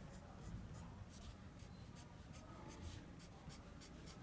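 Marker pen scratching faintly on paper in a quick run of short strokes, drawing tick marks along graph axes.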